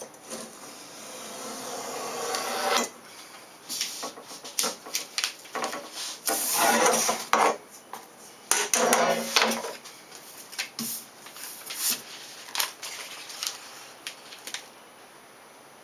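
A craft knife drawn along a steel straightedge, slicing through contact paper for the first few seconds. Then the steel ruler scrapes and knocks on the wooden worktable, and sheets of paper backing rustle loudly as they are lifted and handled, with scattered clicks afterwards.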